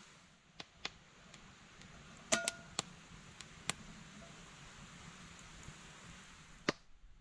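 A small metal kettle hung on a wooden stick knocks and clinks against the stones of a fireplace as it is set over the fire. There is a handful of sharp clicks over a faint steady hiss; the loudest, about two and a half seconds in, has a brief metallic ring.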